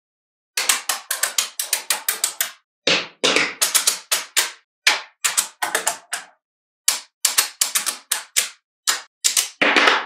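Small metal magnetic balls clicking and snapping together as blocks of them are pressed onto a build, in quick runs of clicks separated by brief silent breaks.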